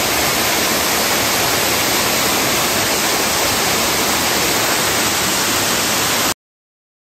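Loud, steady rush of water, like a waterfall or torrent, that cuts off abruptly about six seconds in.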